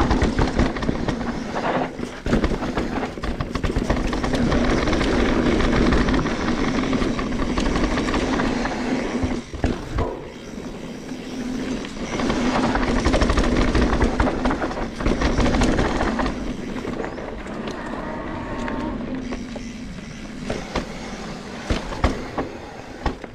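Mountain bike descending a dirt singletrack: tyres rumbling over the dirt and the bike rattling over bumps, quieter in the last several seconds.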